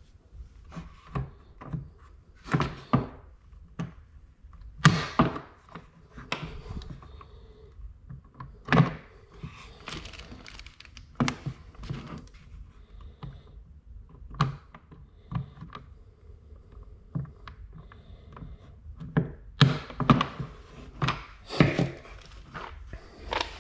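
Irregular thunks, clicks and clatter of a hard plastic motorcycle body part, needle-nose pliers and small hardware being handled and set down on a desk, with a cluster of louder knocks near the end.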